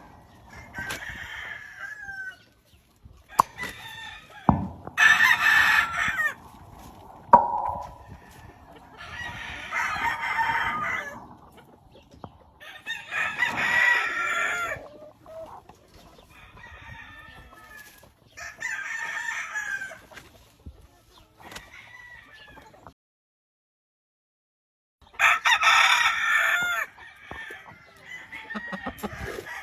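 Several gamefowl roosters crowing one after another, a long crow every few seconds, some near and loud, others fainter, with clucking between. The sound cuts out completely for about two seconds near the end.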